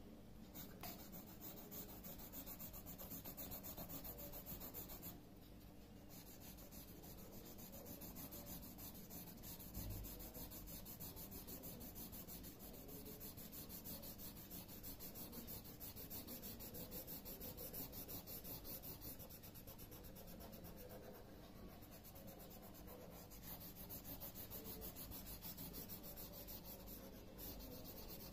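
Pencil graphite scratching on drawing paper in rapid back-and-forth shading strokes, faint and continuous with a couple of brief pauses.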